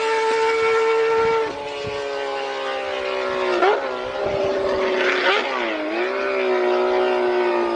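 Honda CBX1050 inline-six engine running at high revs with a high, even howl. The pitch drops a step about a second and a half in, then dips briefly three times before easing slowly down.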